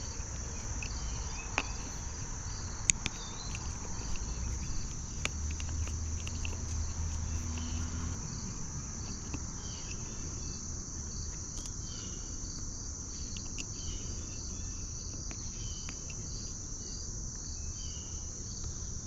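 Crickets chirping in a steady, high-pitched chorus, with a few sharp clicks in the first few seconds.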